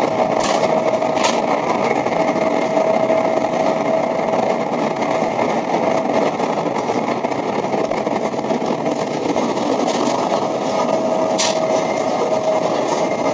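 0 Series Shinkansen running at speed through a tunnel, heard from inside the passenger car: a loud, steady rumble of wheels and rushing air with a steady hum in it. There are a few sharp clicks near the start and again about eleven seconds in.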